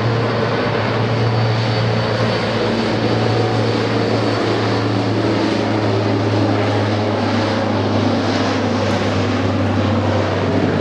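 Seaplane's propeller engine running at high power: a loud, steady drone with a hiss of propeller and engine noise above it.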